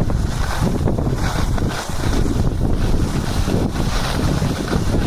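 Wind buffeting the microphone: a loud, steady, rumbling rush with rapid gusty flutter.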